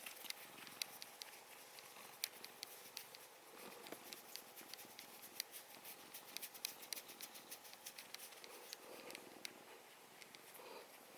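Faint, irregular quick clicks and ticks, several a second, from a house cat close to the microphone.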